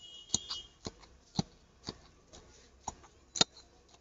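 Pestle pounding boroi plum mash in a mortar: sharp knocks about twice a second, the loudest one near the end.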